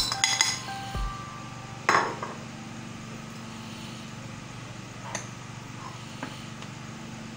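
Clinks and knocks of a container against a glass mixing bowl as onion paste is tipped onto raw chicken, a cluster of clicks at the start and the loudest knock about two seconds in. After that only a steady low hum, with a couple of faint ticks.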